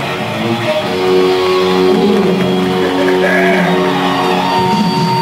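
Music with guitar playing held chords, swelling in level over the first second.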